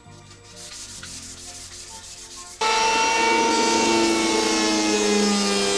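Quiet hand-tool rubbing on wood at first. About two and a half seconds in, a hand-held electric planer cuts in abruptly and runs steadily, planing wood.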